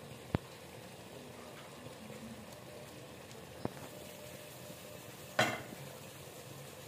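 Keema, peas and potato curry simmering faintly in an aluminium pot, with two light knocks against the pot and a louder clink on the pot about five seconds in.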